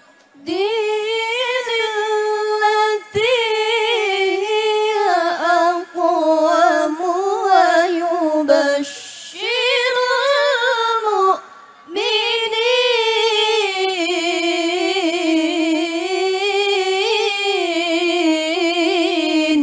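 A young woman chanting Quran verses in the melodic qiroah style, unaccompanied, into a microphone. She holds long notes with wavering, ornamented turns and breaks off briefly several times for breath.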